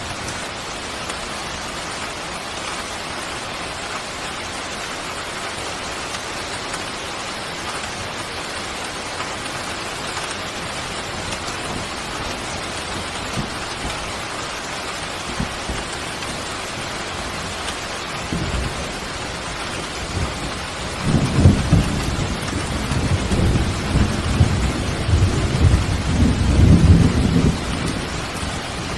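Steady rain falling throughout. About two-thirds of the way in, a low rumble of thunder builds, swells to its loudest near the end, then eases off.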